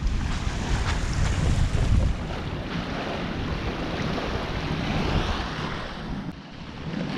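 Wind buffeting the microphone over the wash of small waves on a sandy lagoon shore. The low buffeting is heaviest in the first two seconds; after that the hissing wash of the water is plainer, dipping briefly near the end.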